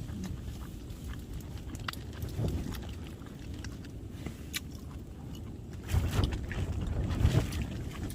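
Strong mountain wind buffeting a backpacking tent and the microphone: a continuous low rumble that rises in a stronger gust about six seconds in. Small clicks and taps sound over it.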